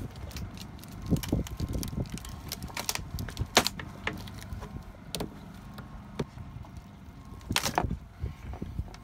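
Scattered knocks, clicks and scrapes of a metal cabin-window frame being handled and worked out of its opening, over a low rumble. The loudest knocks come about three and a half seconds in and again about seven and a half seconds in.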